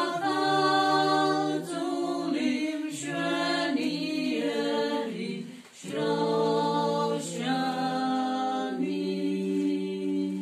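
A small group of women singing a hymn together, unaccompanied, in long held notes with several voices at once. There is a short break for breath a little past halfway.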